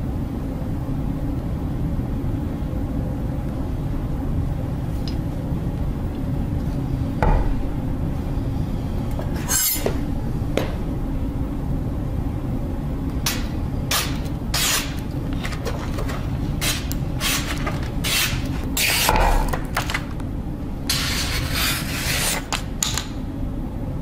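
Hands handling a chef knife and its packaging: light clicks and knocks, then paper and cardboard rustling near the end, over a steady low rumble.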